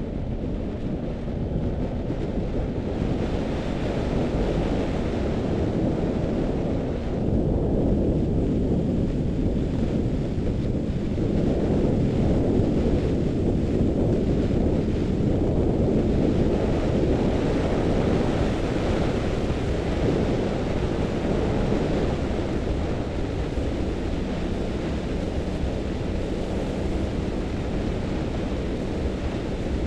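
Wind buffeting the microphone of a camera mounted on a moving vehicle, a steady loud rush with a faint engine hum beneath it.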